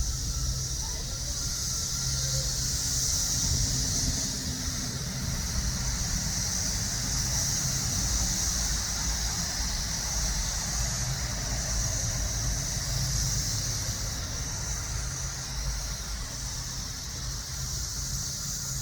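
A chorus of cicadas giving a steady, high-pitched buzz that swells and eases slightly, over a low rumble.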